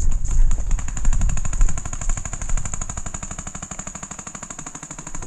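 Paintball markers firing a rapid, steady stream of shots, many a second, growing fainter toward the end.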